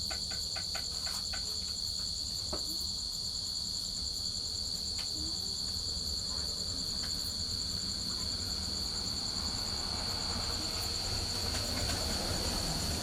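Crickets chirping in a continuous, steady high-pitched trill, over a low rushing noise that grows a little louder near the end.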